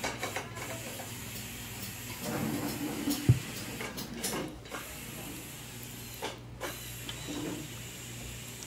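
Pork rinds frying in a large aluminium pot of lard, a steady hiss of bubbling fat, with a few metal clicks and one sharp knock about three seconds in.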